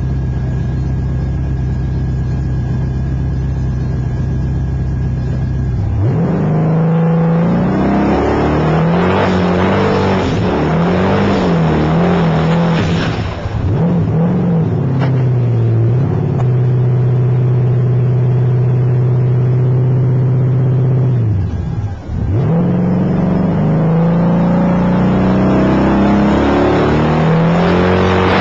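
Twin-turbo LS1 V8 race car engine heard from inside the cockpit. It idles steadily for about six seconds, is then revved up and down repeatedly, and holds a steady higher rpm for several seconds. After a brief dip it climbs in pitch under hard acceleration near the end.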